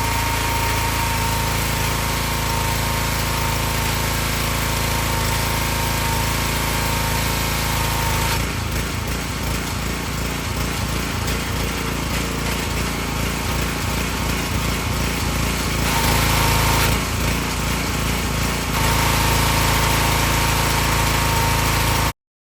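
The 5 hp Honda engine of an Excell XR2500 pressure washer running steadily. About eight seconds in, its sound turns uneven and pulsing for several seconds, steadies briefly, goes uneven again for a moment, then runs steadily once more. The sound cuts off suddenly near the end.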